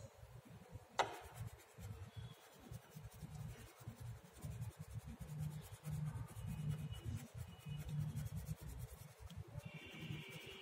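Orange coloured pencil rubbing on a paper worksheet in repeated short strokes as a picture is coloured in, with a single sharp click about a second in.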